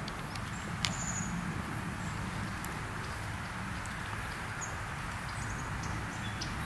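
Outdoor ambience: a steady low rumble, with one sharp click just under a second in and a few faint, short high chirps.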